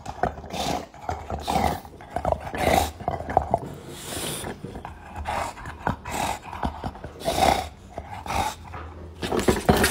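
A bulldog growling and breathing noisily while it chews a rubber ball toy, in repeated bursts about once a second.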